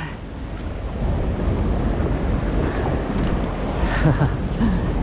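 Shallow surf washing and foaming around the legs, with wind rumbling on the microphone.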